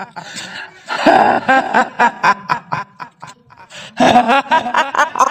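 A woman's staccato "hihihi" cackling laugh, the horror-sound laugh of a kuntilanak ghost. It comes in two bouts, one starting about a second in and another about four seconds in.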